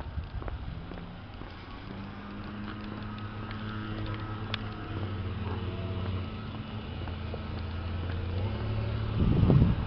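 A car engine hum on a street, steady and slowly growing louder as the vehicle approaches, with a loud low rumble near the end.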